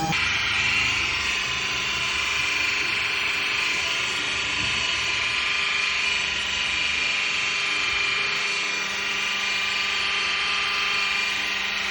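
Electric random orbital sander running steadily, wet sanding a boat hull with 3000-grit abrasive; an even whir.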